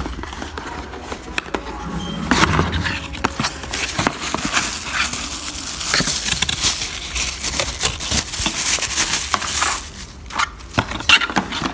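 Cardboard phone box and its inner tray handled up close: rustling and scraping with a run of small clicks and crinkles as it is opened and searched.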